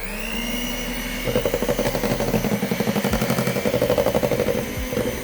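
Electric mixer starting up with a rising whine, then running steadily while beating cake batter, with a fast even churning pulse from about a second in.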